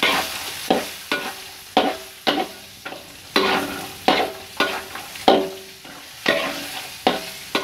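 Metal spatula scraping and knocking around a metal wok, about two strokes a second, each stroke with a short ring from the pan, as peanuts, garlic, candlenuts and red chilies are stir-roasted in a little margarine. A light frying sizzle runs underneath.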